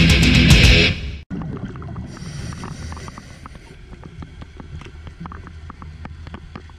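Heavy rock music cuts off about a second in. Then underwater ambience takes over: a steady low rumble with many irregular sharp clicks.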